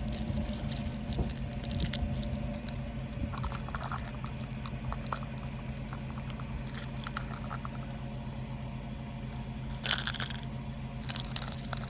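A car's engine running steadily while objects crunch and crackle under its tyres, most densely in the first two seconds, with two short bursts of crunching near the end.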